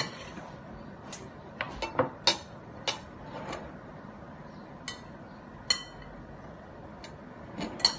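A fork clinking on a plate and a drinking glass knocking on the table: scattered light clinks at uneven intervals, a few ringing briefly.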